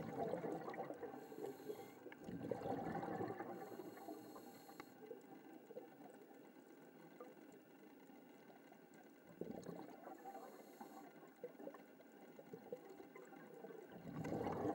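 Scuba breathing underwater: several rumbling bursts of exhaled regulator bubbles, with short high hisses of air being drawn through the regulator between them.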